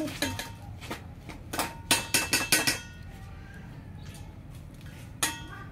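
Metal utensils clinking against stainless steel bowls: a few light clinks at the start, a quick cluster of sharper clinks with brief ringing about two seconds in, and one more near the end.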